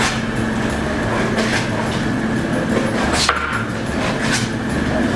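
Knife slicing beef on a cutting board, the blade knocking against the board a few times at uneven intervals.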